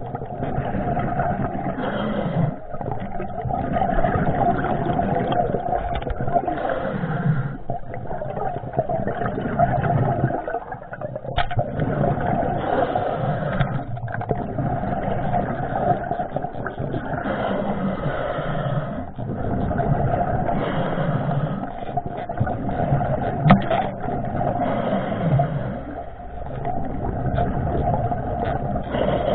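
Muffled underwater noise recorded on a diver's camera while swimming: a steady hum under water rushing that swells and eases every few seconds, with a couple of sharp clicks.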